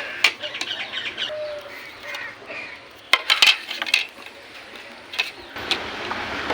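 Sharp metallic taps and clinks, with a quick cluster of them about three seconds in, from knocking a bent mobile phone's steel metal frame straight. Birds chirp in the background.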